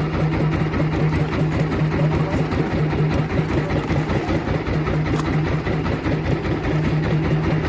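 Small boat engine running steadily at low speed, a constant hum with a fast, even throb.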